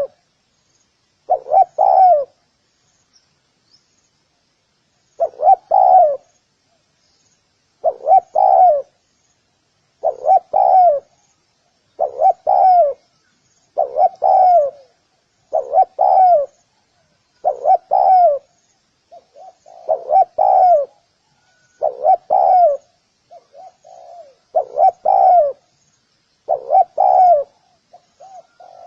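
Spotted dove cooing: a phrase of a few low, rolling coos, repeated about every two seconds with one longer pause near the start. Faint high chirps of small birds run behind it.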